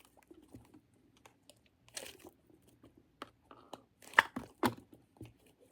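Squishy toys being squeezed and handled close to the microphone: scattered soft crackles and crinkles, with two louder sharp clicks about four seconds in.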